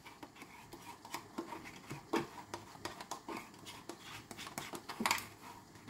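Metal spoon scooping plain yogurt out of a plastic pot: a few soft scrapes and clicks, the loudest about two seconds in and about five seconds in.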